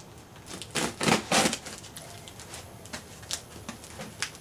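Shipping package being handled: two brief scraping rustles about a second in, then a scatter of light clicks and taps.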